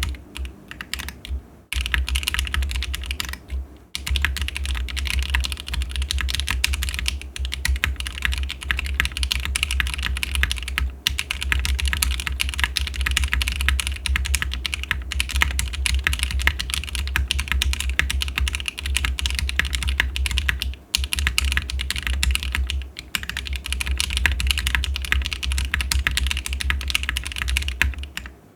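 Fast, continuous typing on a custom CW60 60% mechanical keyboard with lubed and filmed Op Black linear switches on a polycarbonate half plate in a gasket-sock mount, giving a dense run of key clacks with a few brief pauses.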